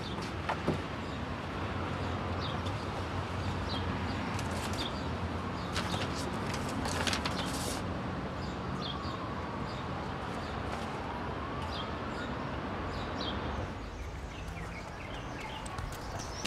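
Urban background ambience: a steady low traffic hum with small birds chirping now and then, and some rustling and handling noises of papers and a bag in the middle.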